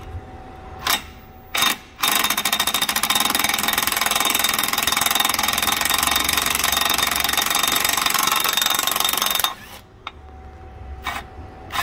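Impact wrench hammering steadily for about seven seconds, loosening a 15 mm starter mounting bolt, then cutting off suddenly. A couple of sharp clicks come just before it starts.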